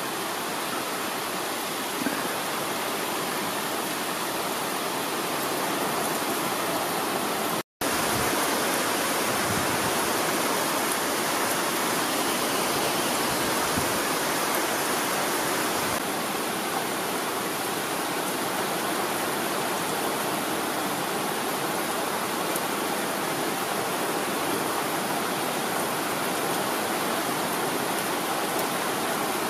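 Heavy rain falling steadily, an even hiss of rain. It cuts out for a moment about eight seconds in.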